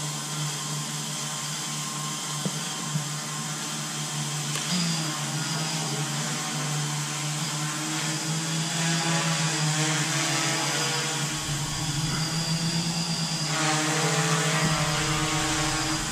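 ModalAI Sentinel quadcopter's four motors and propellers humming steadily in flight. The pitch shifts a little as it manoeuvres, about five seconds in and again near the end.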